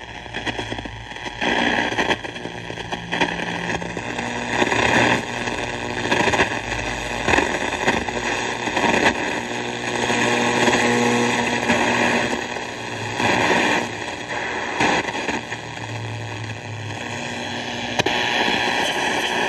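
Philco-Ford Transglobe multiband radio playing through its speaker on the SW2 shortwave band: hissing, crackling static with faint steady whistling tones, swelling and fading every second or two between stations.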